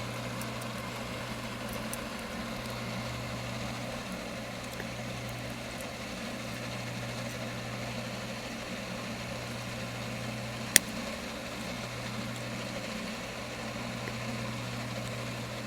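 Pool equipment pump motor running with a steady hum, with a single sharp click about eleven seconds in.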